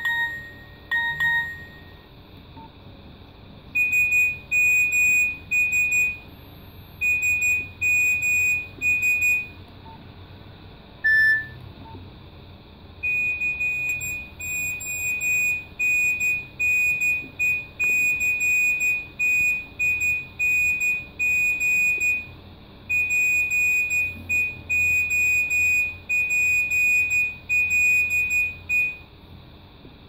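Nokia 1600 mobile phone previewing its message alert tones. Short key-press beeps come near the start and again about 11 seconds in, with long runs of rapid, high, steady-pitched electronic beeps between them.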